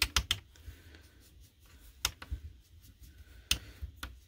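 Craft ink pad and inking brush being handled on a tabletop: a quick cluster of sharp clicks at the start, single taps about two, three and a half and four seconds in, and faint brushing between them.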